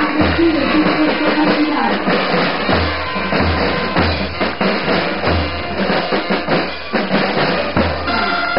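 Marching band's bass drums and snare drums beating a march rhythm, with brass notes held in the first second or two.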